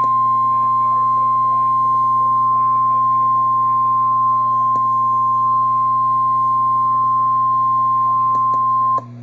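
NOAA Weather Radio warning alarm tone: a single steady 1050 Hz tone from a weather radio, which cuts off suddenly near the end. It signals that a warning, here a tornado warning, is about to be read.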